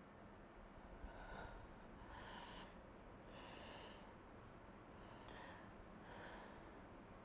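A person breathing audibly, about five soft breaths over a faint steady hiss, the strongest about three and a half seconds in.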